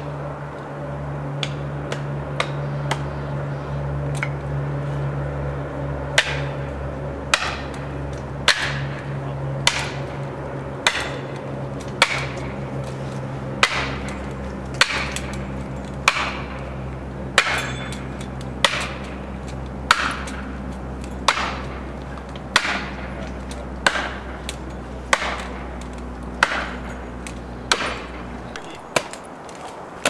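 Hammer blows driving a felling wedge into the cut of a large tree, struck about once every 1.2 seconds with a sharp, ringing crack. The blows grow clear about six seconds in. Under them a machine hums steadily and stops near the end.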